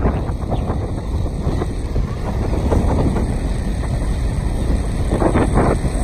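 Wind buffeting the microphone over the steady low rumble of a vehicle driving on a dirt road, with irregular gusts, the strongest near the end.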